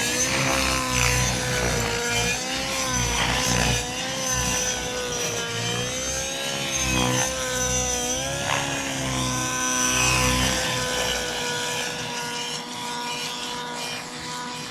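Radio-controlled model helicopter in flight, its steady high drone wavering up and down in pitch as it manoeuvres.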